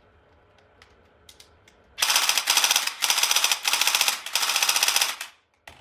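Toy gun firing on full auto: three rapid rattling bursts of fast, repeated sharp strokes, after a few faint clicks and followed by a single click near the end.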